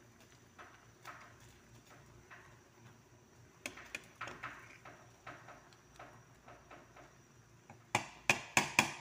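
Pan of fish and alugbati soup at a boil, with scattered soft pops and clicks. Near the end come four sharp knocks in quick succession, a metal utensil against the pan.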